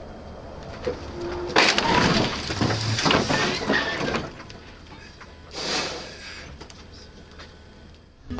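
Collision between cars: a sudden loud crash about one and a half seconds in, followed by some two and a half seconds of crunching, scraping and rattling, then a second short burst of noise near six seconds.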